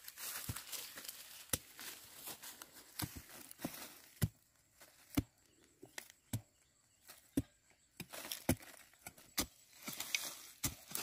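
Machete blade chopping into dry soil to dig out cassava roots, in uneven sharp strokes about once a second, with rustling between the strikes.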